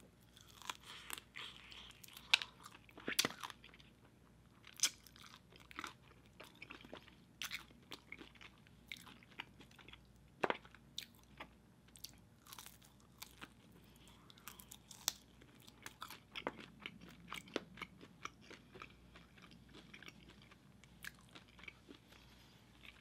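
Close-miked crunching and chewing of crispy KFC fried chicken dipped in cheese sauce: sharp crackles of the breading breaking with each bite, then steadier chewing with scattered crunches.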